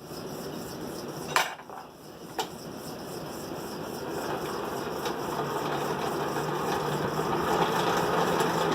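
Steady rushing of a running forge that slowly grows louder, with two sharp metal clanks about a second and a half in and again a second later.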